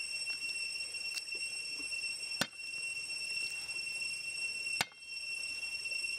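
Heavy cleaver knocking down on garlic cloves on a wooden chopping board to smash them: three sharp knocks, the last and loudest near five seconds in. Behind them runs a steady high-pitched drone.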